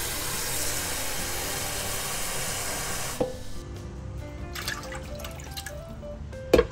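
Water running steadily from a kitchen tap for about three seconds, then shut off abruptly with a click, over background music. Shortly before the end comes a sharp, loud knock, the loudest sound.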